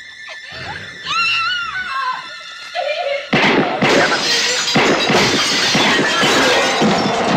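Glass shattering with a sudden loud crash about three seconds in, followed by a few seconds of dense crashing and breaking noise. A high wavering cry comes about a second in, before the crash.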